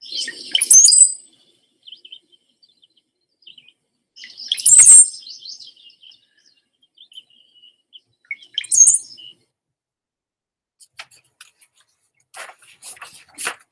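Recorded song of a brown-headed cowbird: three songs about four seconds apart, each a burst of liquid, gurgling notes that glide up to a high, thin whistle, with scattered faint notes between them. A few short clicks come near the end.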